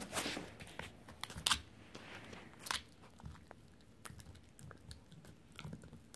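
An Italian Greyhound gnawing a Dingo rawhide bone: irregular crunches and clicks of teeth on hide, the loudest in the first three seconds and softer ones after.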